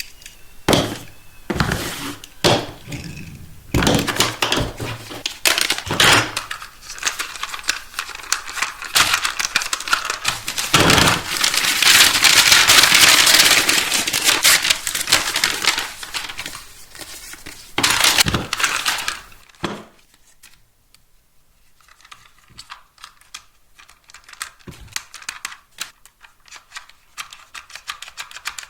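Hot Wheels toy packaging being opened and handled by hand: crinkling plastic and cardboard, with many sharp clicks and cracks. A longer, louder stretch of tearing and rustling comes about twelve seconds in, and after about twenty seconds the sound turns to quieter, scattered clicking.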